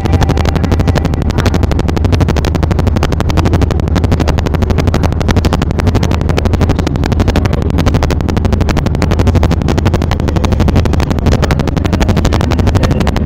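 Boat engine running steadily: a loud low drone with a fast, even chugging.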